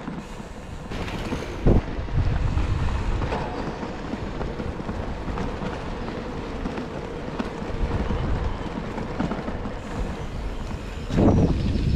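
Wind buffeting the microphone of a camera carried on a moving bicycle, with a low rumble from riding along the path. There is a sharp knock early on and a louder bump near the end.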